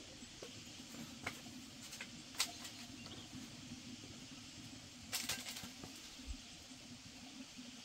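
Light clicks and knocks of metal cooking pots and utensils, with a short clatter about five seconds in as a pot lid is lifted off and set down. A faint steady low hum runs underneath.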